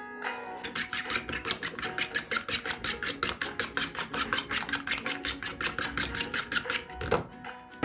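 Knife chopping bitter gourd on a cutting board, rapid even strokes about six a second, stopping shortly before the end.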